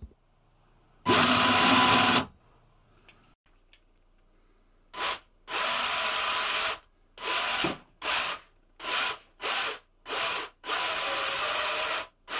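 Electric motors of a four-wheel-drive 3D-printed cart running through external plastic spur gears, driven by remote in short bursts. There is one burst of about a second, then after a pause about seven more, starting and stopping sharply, each a harsh power-tool-like whirr.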